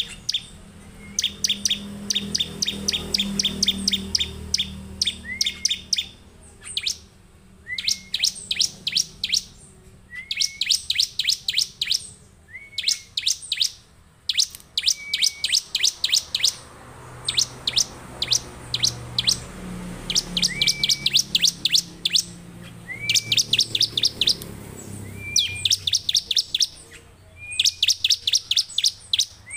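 Bar-winged prinia (ciblek) singing in full voice: about a dozen bursts of rapid, sharp high chips, each opening with a short rising note and repeating every couple of seconds.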